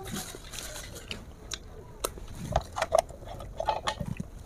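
Close-up eating sounds: chewing and lip smacks on chicken feet, with scattered small clicks, mostly in the second half.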